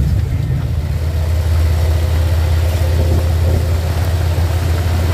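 Harley-Davidson touring motorcycle's V-twin engine running at road speed with wind noise, heard from the rider's seat: a steady low drone.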